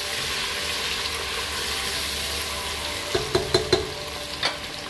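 Sliced onions and whole spices sizzling steadily in hot oil in a non-stick pot while a wooden spatula stirs them. About three seconds in come a few sharp taps and knocks of the spatula against the pot.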